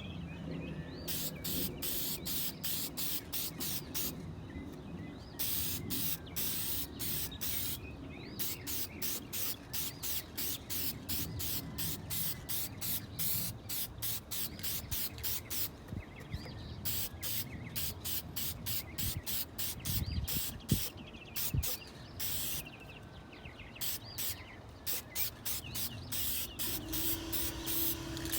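Aerosol can of clear lacquer spraying in short, quick hissing bursts, a couple to a few a second, in runs broken by brief pauses, as a clear coat is laid on.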